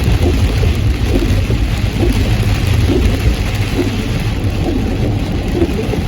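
Heavy rain falling on a moving car, heard as a steady hiss over a deep, steady rumble of road and engine noise.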